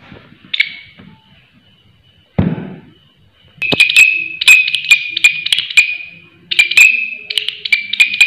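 Large green katydid stridulating. One short chirp comes about half a second in, and after a low knock a loud, rapid series of high rasping chirps with sharp clicks begins about three and a half seconds in, in bursts with short gaps.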